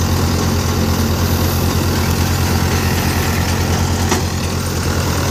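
Four-cylinder diesel tractor driving a multi-crop paddy thresher through its PTO: a steady low engine hum under the even whirring rush of the threshing drum as a bundle of paddy is fed in.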